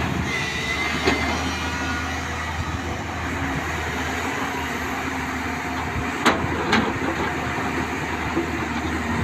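Excavator engine running steadily, with a few sharp knocks: one about a second in and two close together past the middle.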